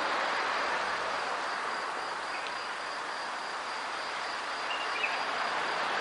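Steady early-morning street ambience: an even wash of noise with a faint high steady tone over it, and a few brief faint chirps partway through and near the end.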